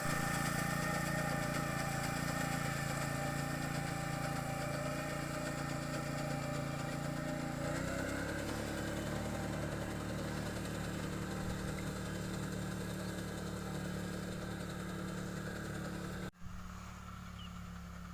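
Small engine of a rice-cutting machine running steadily. Its note changes about halfway through. Near the end the sound breaks off abruptly and carries on quieter.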